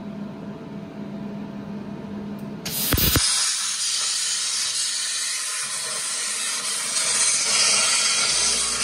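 Primeweld Cut60 plasma cutter on an Arcdroid CNC table: a low steady hum, then about three seconds in the plasma arc strikes with a sharp crack and settles into a steady, much louder hiss as the torch cuts through the metal strip.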